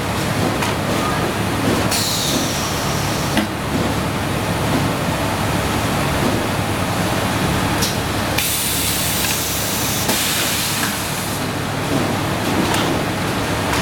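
Semi-automatic toilet paper roll packing machine running: a steady machine hum with a few clicks and hissing bursts, the longest lasting about two seconds, some eight seconds in.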